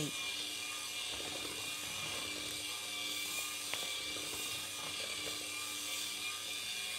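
Electric hand mixer running steadily, its beaters whirring through thick cake batter in a bowl.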